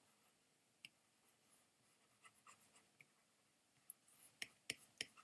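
Faint, scattered taps of a pen stylus on a graphics tablet, a few light ticks spread out at first and a quicker run of them near the end.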